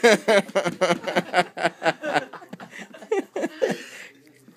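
A person laughing: a quick run of pulsing chuckles, loudest at first, dying away after about three seconds.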